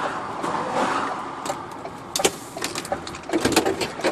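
Lorry cab noise on the move: a steady road and engine rumble. From about halfway through, a run of sharp, irregular clicks and rattling knocks is heard over it.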